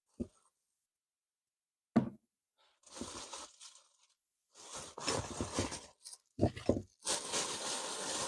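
Handling noises: a few sharp knocks and thumps, with stretches of rustling and scraping between them.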